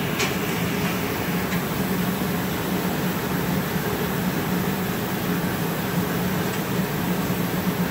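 Gas-fired glory hole and furnace blowers in a glassblowing shop running with a steady hum and rushing hiss, while glass is reheated in the glory hole.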